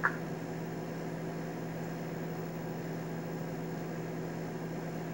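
Steady room background: a constant low hum with faint hiss, like an air conditioner or fan running, with one brief click at the very start.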